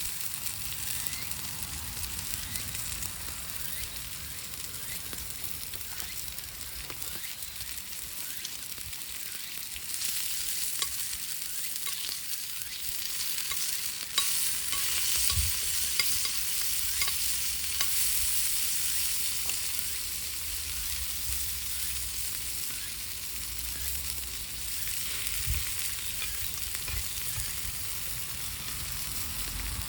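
Steady sizzling hiss with scattered small crackles and clicks from cooking over an open wood fire, with a couple of soft low knocks. It gets somewhat louder about a third of the way through.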